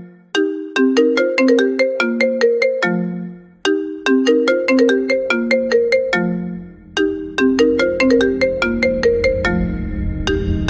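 Phone ringtone: a looping melody of short plucked notes, the same phrase repeating about every three and a half seconds, with a low bass coming in and swelling over the second half.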